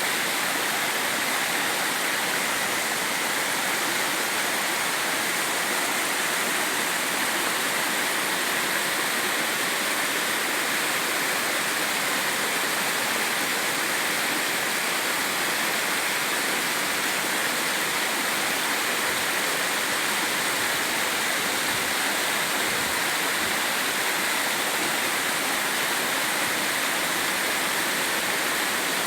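Mountain stream water rushing and splashing over rocks, a steady, unbroken flow.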